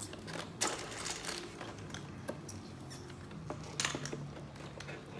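Small plastic building bricks clicking and rattling as loose pieces are sorted through by hand: scattered light taps, with sharper clicks about half a second in and near four seconds.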